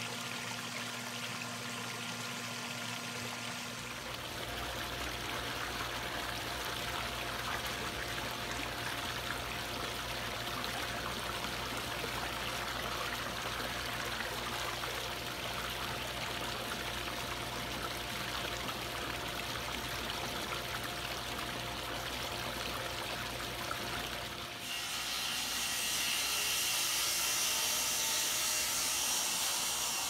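Steady running and trickling of swimming pool water as the newly refilled pool circulates. In the last few seconds a brighter, louder hiss comes in as granular chemical is scattered over the water.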